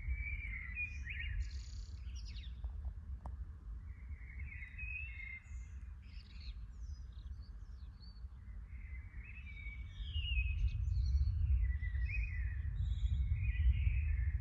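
Several songbirds singing in overlapping chirps and trills, over a steady low rumble that grows louder about ten seconds in.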